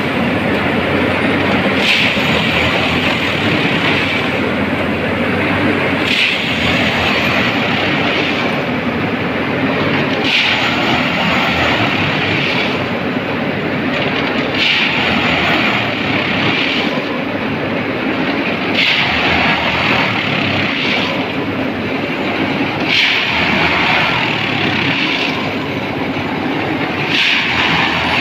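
Railway ballast tamping machine at work: steady engine and hydraulic noise, with a brighter hissing, grinding surge about every two seconds as its vibrating tamping tines work the ballast.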